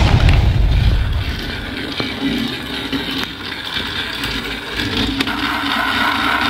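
Motorised TrackMaster Diesel toy engine running along plastic track with a steady whirring hum. In the first second, the loud noise of the tunnel blast having just sprung open is still fading.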